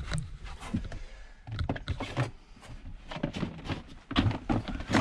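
Plastic drawer cabinet being shifted and pulled out across a pickup bed inside a camper shell: a series of irregular knocks, thuds and scrapes.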